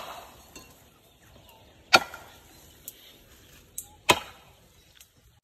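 Chopping strokes into felled eucalyptus wood: sharp single blows about two seconds apart, the loudest a little after four seconds in, with lighter knocks between.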